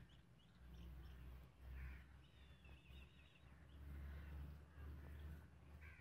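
Near silence with a low rumble on the microphone and a faint bird trilling in the background a little over two seconds in.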